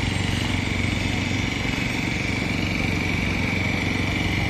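An engine running steadily, with a thin steady whine above its low hum.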